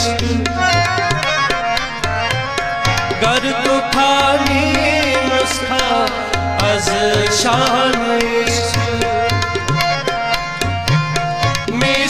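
Instrumental interlude of a devotional song: tabla playing a steady rhythm under an ornamented melody line with sustained chordal accompaniment.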